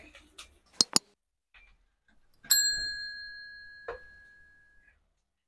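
A single bright metallic ding, bell-like, about two and a half seconds in, ringing out and fading over about two seconds, after a couple of faint clicks.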